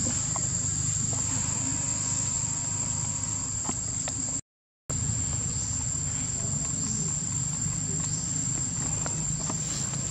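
A steady, high-pitched drone of insects, likely cicadas or crickets, over a low background rumble. The sound cuts out completely for about half a second a little before the halfway point.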